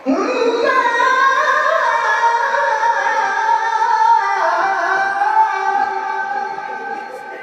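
A man singing a long, ornamented sholawat phrase in the melismatic qori style into a microphone. The voice is held on high, slowly wavering notes, steps down in pitch about four seconds in, and fades near the end.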